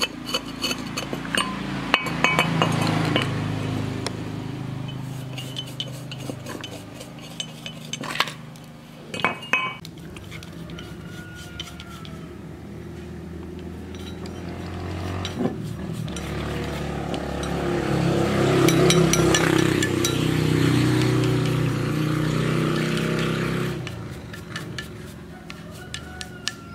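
Metal tools scraping and clinking against the rusted cast end bell of a small electric motor, with a few sharp knocks about eight seconds in. Under it runs a steady low machine drone that swells twice.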